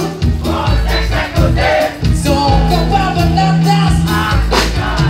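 A live band playing a song through a PA system, with a sung melody over drums and a sustained bass line.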